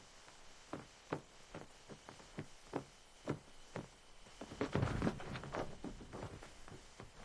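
A run of light knocks, about two a second, with a louder, denser patch of knocking and scuffing about five seconds in.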